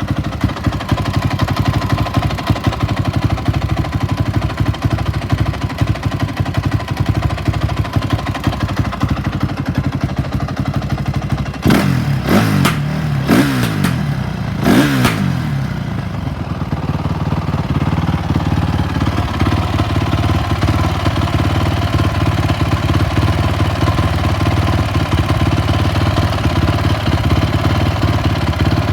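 2004 Honda CRF450's single-cylinder four-stroke engine idling roughly, blipped three times about halfway through with quick rises and falls in revs, then settling back to idle. The owner suspects the rough idle needs internal adjustment after the hot-start plunger, found stuck, was cleaned and refitted in the carburettor.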